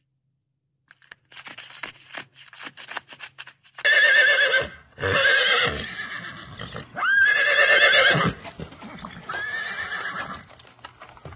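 Horse whinnying four times, each call about a second long and wavering in pitch. Before the first whinny comes a run of quick clicks.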